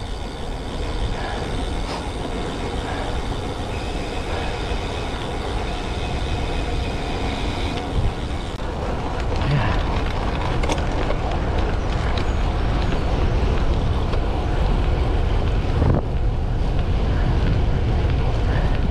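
Wind rushing over the camera microphone and tyres hissing on wet tarmac as a road bike rolls along, getting louder about halfway through as speed picks up.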